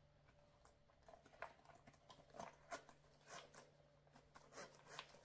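Near silence with faint, scattered soft clicks and rustles of small items and a handbag being handled.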